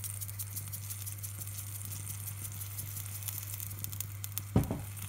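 Minced meat beginning to sizzle in hot olive oil in a stainless-steel pot: light, steady crackling. A sharp knock about four and a half seconds in.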